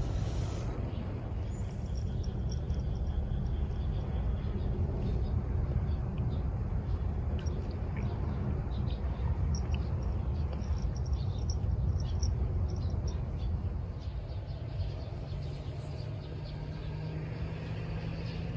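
Outdoor ambience: a steady low rumble with faint, scattered bird chirps. A low steady drone comes in near the end.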